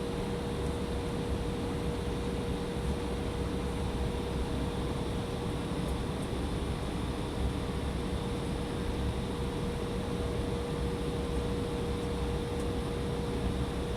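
Steady jet noise inside the cabin of an Embraer ERJ-175 airliner, from its GE CF34-8E turbofan engines and the rushing air, with a constant hum-like tone and a low rumble.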